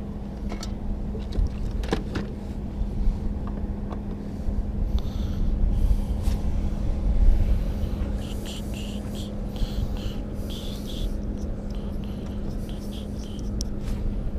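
Wind rumbling on the microphone over a steady low hum, with a few light clicks and knocks. The rumble swells briefly about halfway through.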